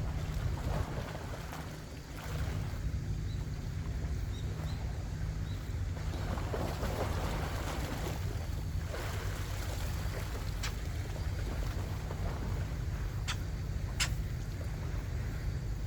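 Wind buffeting the microphone over the wash of the sea, with a few sharp clicks in the second half.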